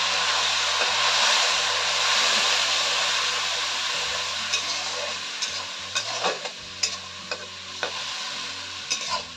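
A splash of water in hot oil in a metal wok hissing and sizzling over onions, garlic and green chillies, the hiss slowly dying down. From about halfway, a metal spatula scrapes and clicks against the wok as the mixture is stirred.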